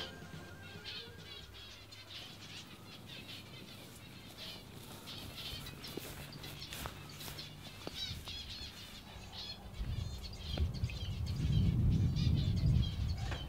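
Small birds chirping and singing on and off, with wind blowing on the microphone as a low rumble from about ten seconds in, the loudest part.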